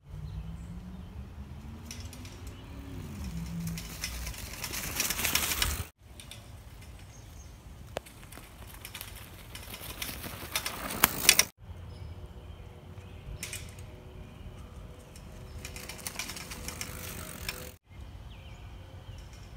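Mountain bike riding over a dirt trail covered in dry leaves: the tyres crunch and rustle through the leaves, growing loud twice as the bike passes close. The sound breaks off abruptly between short takes.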